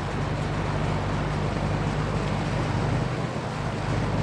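Vintage Hunter FL20 box fan running steadily: a low electric-motor hum under an even rush of air from the blades.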